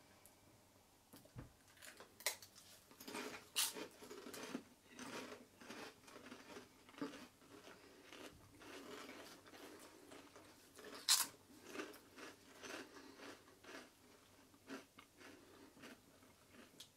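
Potato crisps being bitten and chewed close by, a run of irregular crunches, with two sharper, louder bites, one a few seconds in and one about eleven seconds in.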